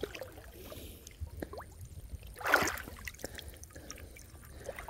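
Water lapping and small splashes from a person wading chest-deep through a ditch while working a gill net by hand, with one louder splash about halfway through.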